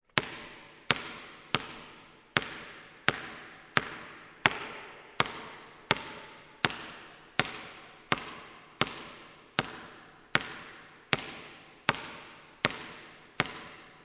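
A ball being bounced steadily by hand in a large, echoing court, a sharp bounce about every three-quarters of a second, each trailing off in long reverberation.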